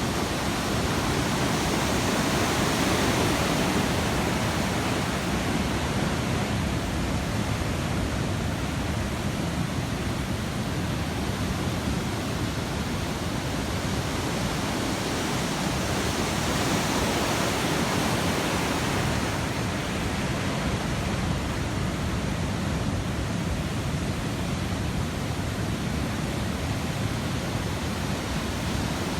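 Ocean surf breaking and washing on a beach, a continuous rush that rises slightly a couple of times.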